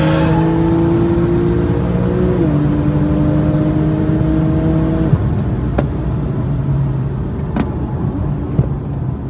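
Porsche 991.1 911 Turbo's twin-turbocharged flat-six pulling hard at high speed, heard from inside the cabin, with a steady engine note that steps down slightly in pitch about two and a half seconds in. About five seconds in the throttle is lifted and the engine note drops away, leaving loud wind and road noise with two sharp clicks.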